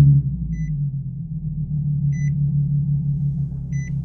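Nissan Z sports car's engine just after a start, its flare dropping within the first second to a steady idle. Three short high beeps of the car's warning chime sound evenly, about a second and a half apart.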